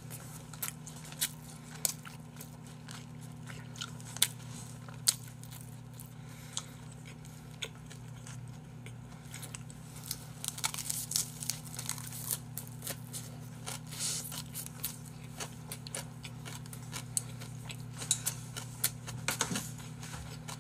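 Close-miked eating: chewing and crunching of a lettuce-wrapped bite of braised pig's trotters, with scattered sharp clicks of chopsticks against plastic delivery trays, over a steady low hum.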